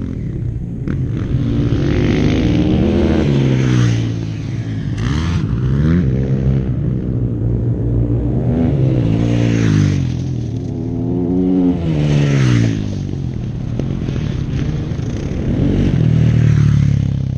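Motocross dirt bike engines revving on the track, their pitch repeatedly climbing and dropping with the throttle. They come in loud swells a few seconds apart, with more than one engine heard at times.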